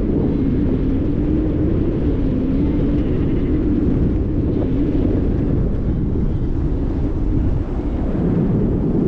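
Strong wind buffeting the microphone: a loud, steady rumble with a low hum that wavers slightly in pitch.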